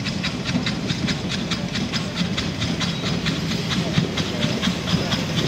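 Steam locomotive standing in a station, hissing steam with a quick regular pulsing of about five beats a second, over a low rumble, with faint voices of people nearby.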